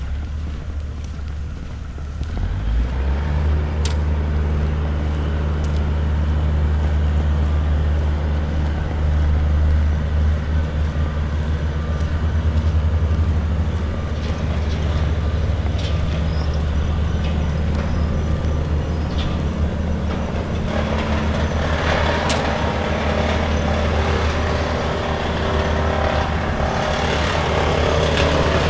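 A heavy vehicle's engine running with a steady low drone that sets in about three seconds in, with a broader rushing noise building up in the last third.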